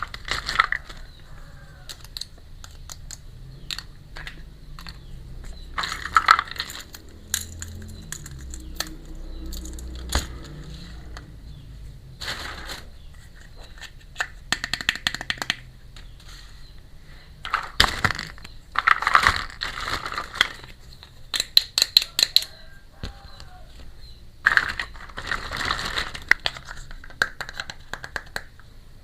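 Small plastic toy kitchen pieces being handled, clicking and tapping together, with bursts of crinkling packaging.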